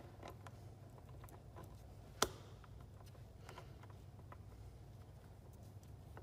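Faint, scattered clicks and taps of chainsaw parts being handled during reassembly, with one sharper click about two seconds in, over a low steady hum.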